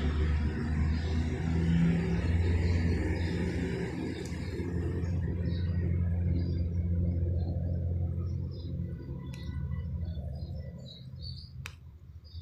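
A low, steady engine hum, such as a passing or idling vehicle, that fades out over the last few seconds, with small birds chirping now and then.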